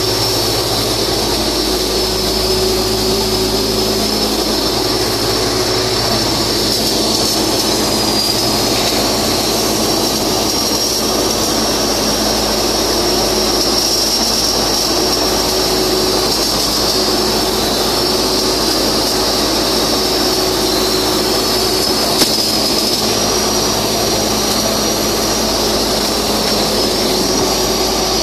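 Steady, loud machine drone with a high-pitched whine that wavers slightly in pitch over a low hum, typical of ventilation blowers and welding power sources; one faint tick about two-thirds of the way through.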